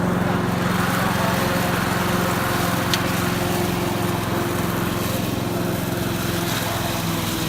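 Petrol engine of a walk-behind rotary lawn mower running steadily under mowing load, with one sharp click about three seconds in.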